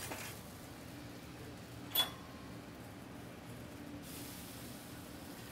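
Shrimp sizzling faintly on a hot flat-top griddle over a low steady hum. About two seconds in, a metal spatula gives one sharp metallic clink against the griddle, and the hiss picks up again from about four seconds as the spatula slides under the shrimp.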